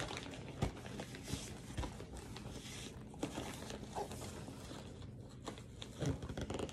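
Faint rustling and crinkling of packaging with scattered light knocks, as a boxed frozen meal is pushed into a lunchbox that it will not fit.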